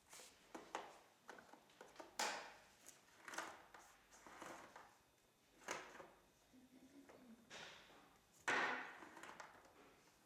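Handling noise: a string of short knocks, clicks and rustles of objects being moved, the loudest about eight and a half seconds in.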